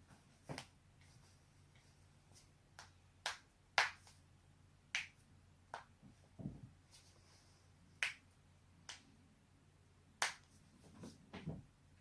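A person's joints cracking: about a dozen sharp, separate pops at irregular intervals, with one duller, deeper thud about six and a half seconds in.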